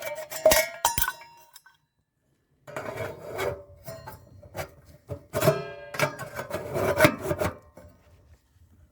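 Stainless-steel tent stove and its chimney pipe being handled: rapid metal clinks and scraping with a ringing tone. The sound stops dead for about a second early on, then comes back denser.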